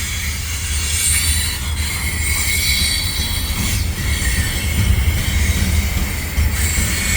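Freight cars rolling by on a curve: a steady low rumble of steel wheels on rail, with a high-pitched squeal of the wheels against the curved rail that comes and goes.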